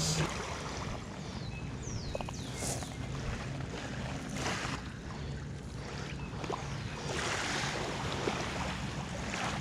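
Wind on the microphone over small waves lapping the gravel shore.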